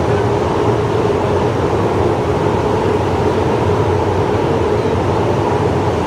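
Electric arc furnace melting scrap steel, its graphite electrodes arcing: a loud, steady, unbroken noise with a constant hum running through it.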